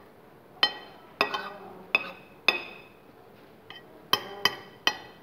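Metal spoon and fork clinking against a dish while food is scooped up: about eight sharp, ringing clinks in two groups, with a lull of about a second past the middle.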